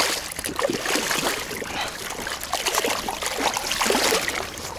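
Irregular water splashing and sloshing as a speared carp struggles on the spear.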